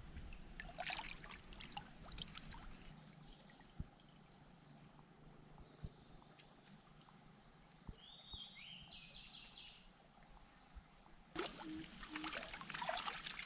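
Shallow stream water splashing and sloshing as a wooden pole is jabbed into submerged branches and legs wade through the water, in two bouts: in the first couple of seconds and again from about 11 seconds in. In between it is quieter, with a faint high, thin call repeating in short steady notes.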